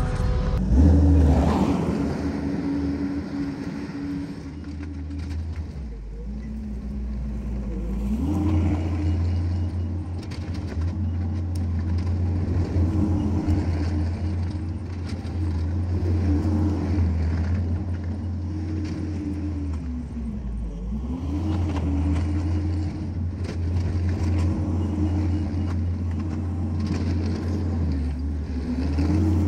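Skid steer's diesel engine working hard as it pushes a pile of mulch and dirt. The engine pitch sags under load about six seconds in and dips sharply again about twenty seconds in, recovering each time.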